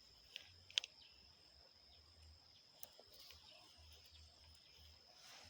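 Faint, steady high-pitched insect trill, with a few sharp clicks in the first second.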